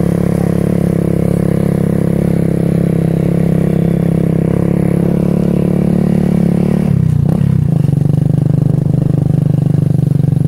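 Small motorcycle engine running steadily close to the microphone, its pitch dipping briefly about seven seconds in and then settling slightly lower.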